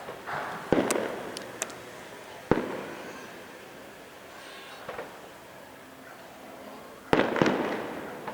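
Aerial fireworks bursting: three sharp bangs, about a second in, at two and a half seconds and near the end, each trailing off in echo, with thin crackles after the first and a fainter pop in between.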